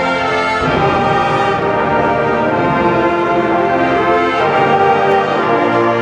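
Marching band playing a brass-led passage of sustained chords that shift every second or so.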